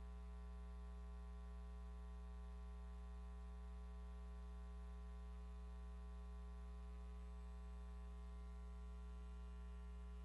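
Dead air: a faint, steady electrical hum and buzz, a low tone with a ladder of overtones that never changes.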